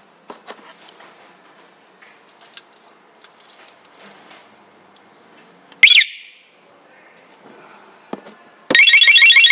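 Light clicks and handling noise, then one loud short chirp from a 12V remote-control motorcycle alarm about six seconds in. Near the end the alarm's siren starts up loud with a fast, repeating warble.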